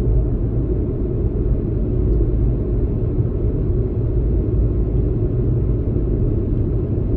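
Car towing a horse trailer on the road, heard from inside the cabin: a steady low rumble of road and engine noise.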